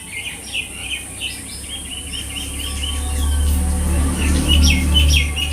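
Small birds chirping in quick, repeated short notes. Over the second half a low rumble grows louder.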